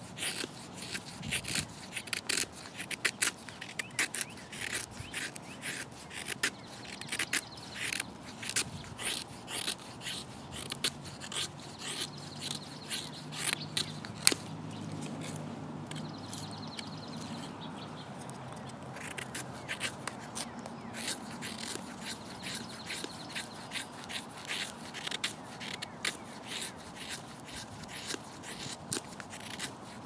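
Leatherman Wave multi-tool knife scraping and shaving a dry wooden stick in quick repeated strokes, about two a second, with a short pause near the middle.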